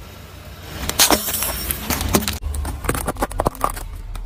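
Car tyre rolling over a row of plastic disposable lighters and crushing them: a loud crack about a second in, then a quick run of sharp plastic snaps and clicks over a low rumble.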